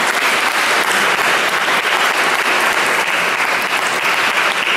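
A congregation applauding: many people clapping steadily.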